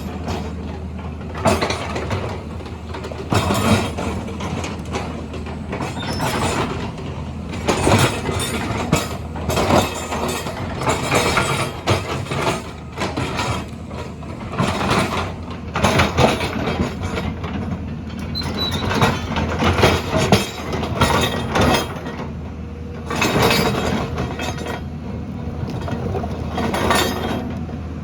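Heavy earthmoving machine at work: a steady low engine drone under frequent, irregular metallic clanks and rattles.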